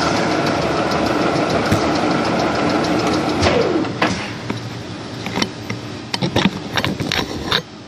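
Milling machine spindle running steadily; a little over three seconds in the sound falls and eases off, and sharp metallic clicks and knocks follow.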